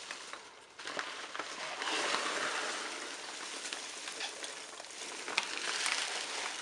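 Foam packing peanuts rustling and squeaking as hands dig through them in a shipping box, a steady crackly rustle with small ticks.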